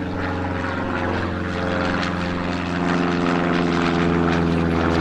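Single-engine propeller light aircraft flying overhead. The steady drone of its piston engine and propeller grows slightly louder about halfway through.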